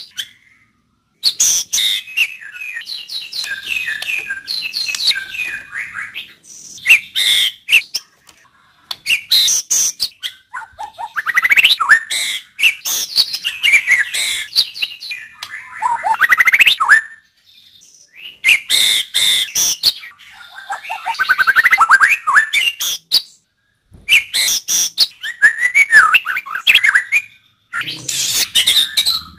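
White-rumped shama singing: loud phrases of varied, fast gliding whistles mixed with sharp clicking notes, each a few seconds long and separated by brief pauses.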